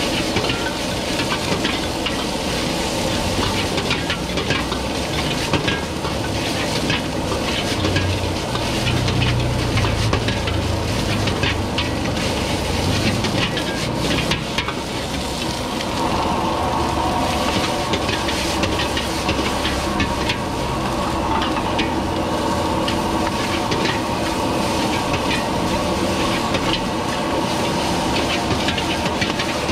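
Fried rice sizzling in two woks over gas wok burners, with metal ladles repeatedly scraping and clanking against the pans.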